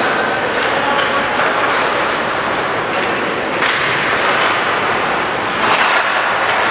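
Ice hockey game in a rink: a steady hall hubbub with two sharp knocks of stick or puck on the boards, about halfway through and again near the end.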